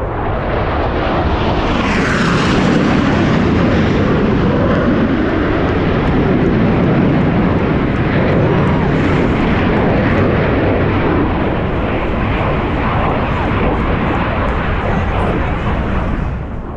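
Loud jet noise from Blue Angels F/A-18 Super Hornets flying by. It builds over the first couple of seconds, with a falling sweep in pitch, stays loud and steady, then drops away right at the end.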